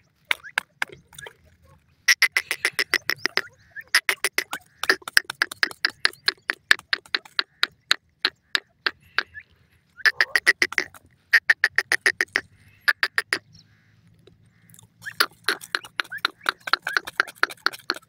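A francolin hen feeding on dry ground makes rapid runs of short, sharp clicks, several a second. They come in bursts of one to three seconds, with brief pauses when the bird lifts its head.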